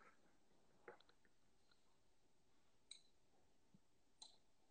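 Near silence: room tone with a few faint, brief clicks, about a second in, about three seconds in and again just after four seconds.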